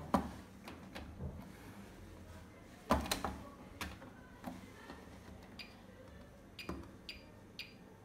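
Clicks from a Bosch Classixx 6 VarioPerfect washing machine's control panel as the program selector dial is turned through its settings and the option buttons are pressed. It is a series of sharp separate clicks, the loudest about three seconds in.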